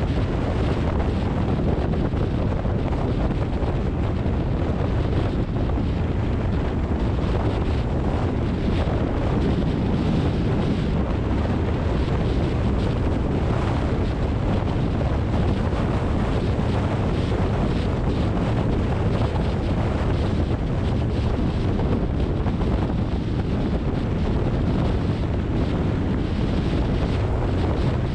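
Steady noise of a car driving on rain-wet streets: road, tyre and wind noise, even in level throughout, heaviest in the low range.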